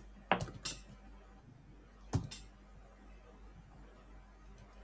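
A few isolated computer keyboard keystrokes, three sharp clicks in the first half, over a faint steady hum.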